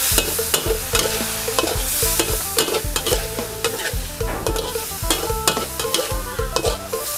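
A metal spatula scrapes and clanks against a wok at about three strokes a second, the wok ringing briefly at each stroke. Eel pieces in curry paste and sauce sizzle underneath as they are stir-fried.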